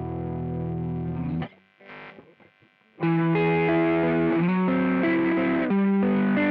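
Electric guitar played through a JOYO Vintage Overdrive pedal with a distorted tone: a held chord rings, then is cut off about a second and a half in. After a short gap, a line of single notes is picked from about three seconds in.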